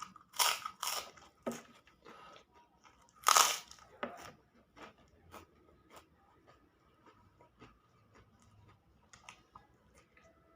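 Close-miked eating: a few loud crunchy bites about half a second, one second and three seconds in, then quieter chewing with small scattered clicks.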